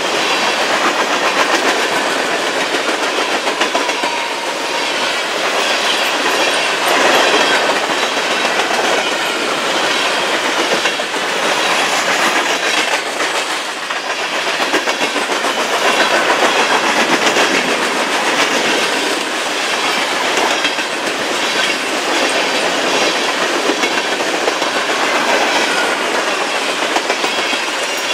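Freight train cars, covered hoppers and then tank cars, rolling past close by: steel wheels clacking over the rail joints in a steady, repeating rhythm over a continuous rolling rumble.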